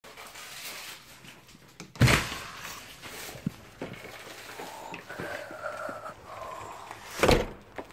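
Two heavy thumps, one about two seconds in and one near the end, with faint knocks and rustling between.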